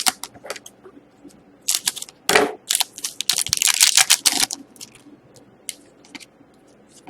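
Trading cards being handled and shuffled by hand, a run of crisp clicks and rustles that thickens into a busy patch in the middle, then thins out to a few scattered clicks.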